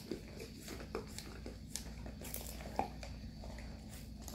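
Dogs licking and chewing ice cream out of small cups: faint, irregular wet smacks and small ticks of tongue and teeth against the cup.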